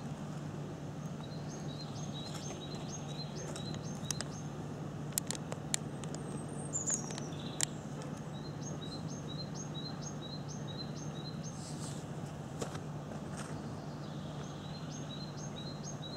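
A small bird singing a repeated two-note phrase, high then low, in three bouts, over a steady low hum. A few sharp clicks come near the middle.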